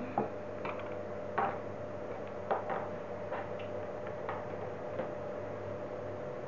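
Light, irregular plastic clicks and taps as plastic intraoral x-ray film holder parts (aiming ring, indicator arm and bite block) are handled, fitted together and set down on a table, over a steady background hum.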